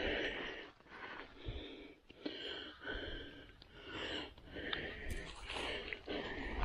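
A man's breathing close to the microphone: rough, audible breaths coming about once a second.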